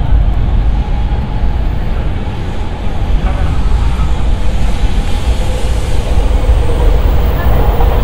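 Steady low rumble of a train running on the steel elevated railway overhead, mixed with street traffic noise.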